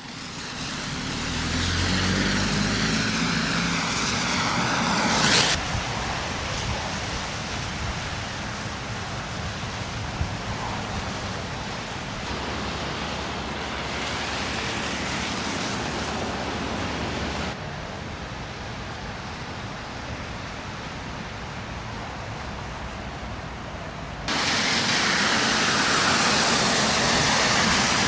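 Street traffic noise: cars passing with steady tyre hiss, one passing close and loud about five seconds in. The sound cuts abruptly from one stretch to the next about five, seventeen and twenty-four seconds in.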